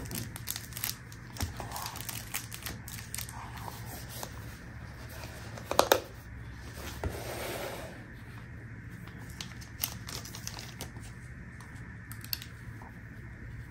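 Quiet handling noises: the plastic sleeve of a sunglasses cleaning cloth crinkling, and light clicks and taps as a sunglasses case and other items are handled and set down on a stone tabletop. There is a louder knock about six seconds in and a soft rustle just after.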